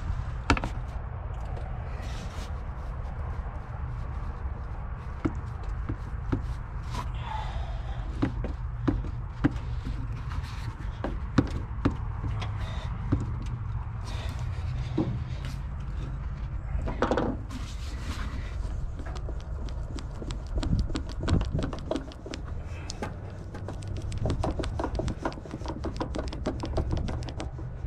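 Hand tools working on a car engine during a thermostat replacement: scattered metal clicks and knocks, then a fast run of ratchet clicks in the last few seconds, over a steady low hum.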